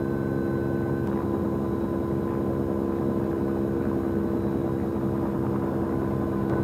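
Light helicopter hovering low with a moose hanging beneath it in a weighing sling, its engine and rotor giving a steady, unchanging hum with a faint high whine.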